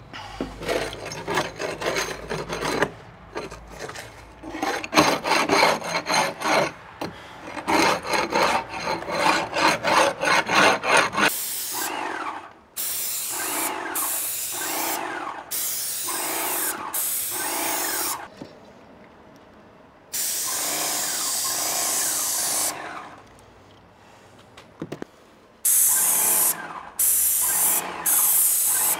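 A fast run of scraping strokes on wood for about the first eleven seconds. Then a Magnum X5 airless paint sprayer's gun fires in repeated hissing bursts of about a second each, with one longer burst past the middle.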